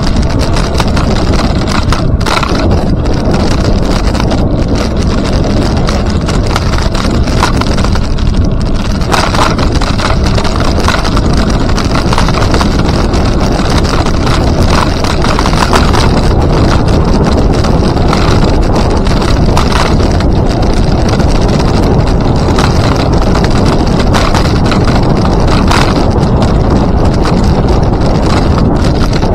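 Wind buffeting the microphone of a camera moving along with a rider: a loud, steady rumble, broken by a few brief knocks.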